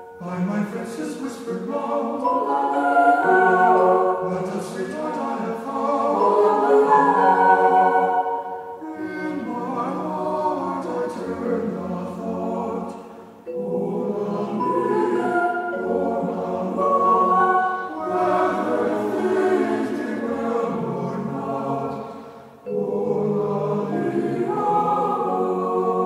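Background music: a choir singing slow, held chords, with two short breaks between phrases, one about halfway through and one near the end.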